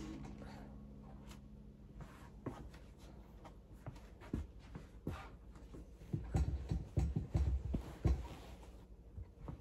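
Cloth rustling and soft handling knocks from someone moving close to the microphone in a small room, with a run of louder low thumps in the second half.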